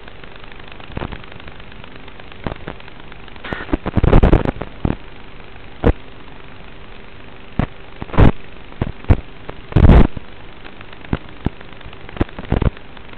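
Static on the audio of an analog 5.8 GHz FPV video link: a steady hiss broken by sharp crackles and pops, thickest about four seconds in and again near ten seconds, the sound of the video signal breaking up.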